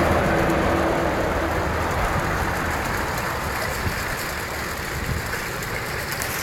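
Water rushing and spilling as an overfilled canal lock overflows its side onto the towpath, with a low steady hum underneath for the first couple of seconds.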